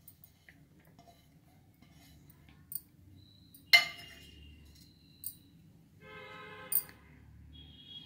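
Glass bowl clinking once against a hard surface about four seconds in, with a short ringing after the hit; light clicks before it as chopped onion is tipped out. A brief whine follows about two seconds later.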